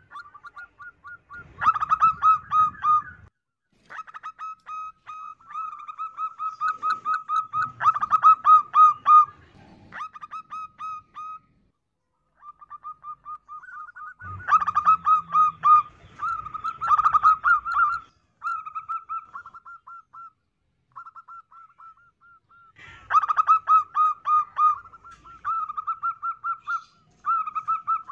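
Female zebra dove cooing: phrase after phrase of quick, rolling staccato notes, with louder bursts every few seconds and two brief pauses.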